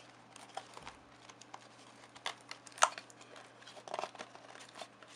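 Cardboard box insert and plastic-wrapped parts handled by hand: light rustling and crinkling with scattered clicks, the sharpest about three seconds in.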